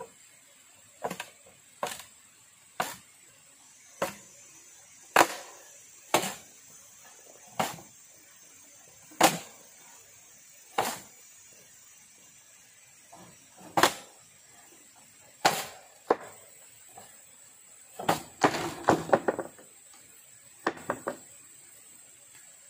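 A hand tool striking bamboo with sharp, separate blows, roughly one every second or two, breaking into a quick flurry of strikes about three quarters of the way through.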